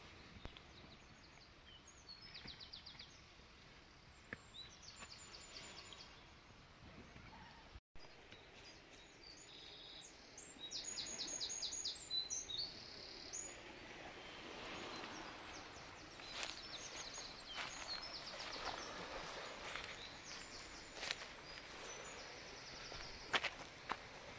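Faint bird song: short, rapid trills of high, evenly repeated notes every few seconds over a steady outdoor hiss.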